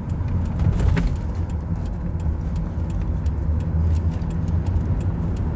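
Nissan Maxima's V6 engine pulling steadily under acceleration up a hill, heard from inside the cabin with road noise.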